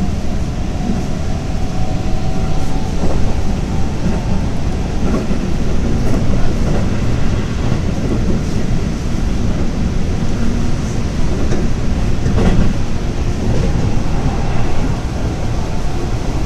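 Running noise heard inside a Keihan electric train carriage at speed: a steady rumble of wheels on rail, with a few scattered clacks from rail joints.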